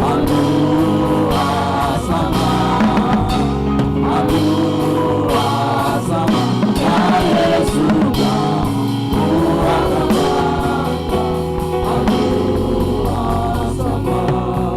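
Gospel worship song: voices singing together over a band with drums keeping a steady beat.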